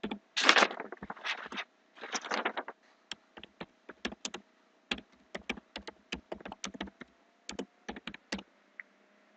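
Computer keyboard typing: dense runs of keystrokes in the first three seconds, then separate key clicks that stop about eight seconds in.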